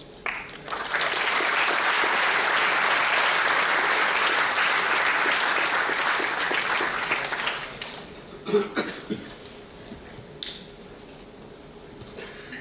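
Audience applause: dense clapping for about seven seconds that then dies away, followed by a few scattered knocks.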